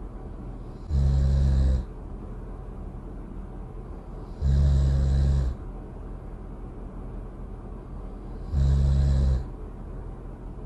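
Cartoon snoring sound effect: three loud snores, each about a second long and spaced about three and a half seconds apart, over a steady low background noise.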